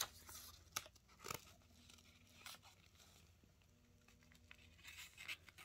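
Near silence broken by a few faint crackles and crinkles of a printed transfer sheet being handled and lifted off a cotton T-shirt, several near the start and a cluster near the end.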